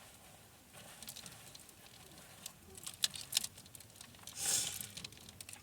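Quiet handling noise from clothes and hangers being moved about: a few light clicks about three seconds in, then a brief rustling swish near the end.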